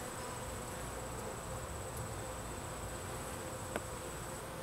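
Italian honey bees buzzing in a steady hum over an opened hive, with one sharp click about three-quarters of the way through.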